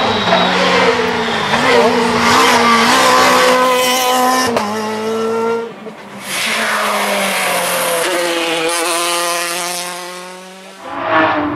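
Rally cars at full throttle on a stage, the engine note climbing and dropping at each gear change. The sound comes in a few back-to-back clips with abrupt cuts.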